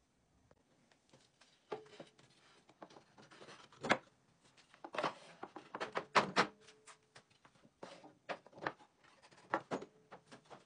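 Wooden muntin strips being handled and laid crosswise on a workbench: scattered knocks and clatters of wood on wood, the loudest a few seconds in and again a little past the middle.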